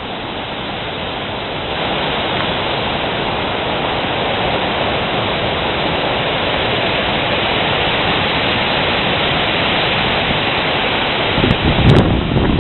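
Storm-force wind rushing steadily, growing louder about two seconds in. Near the end, gusts buffet the microphone with deep thumping pulses and a few sharp clicks.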